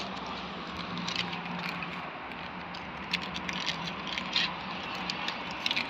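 Scattered small clicks and rattles of a snack package being handled as coloured pieces are picked out, over a steady low hum.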